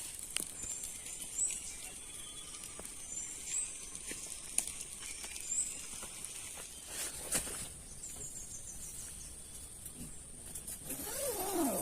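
Steady hiss of rain with scattered knocks and patters, and a few short, high, rising chirps. Near the end comes a brief wavering lower sound.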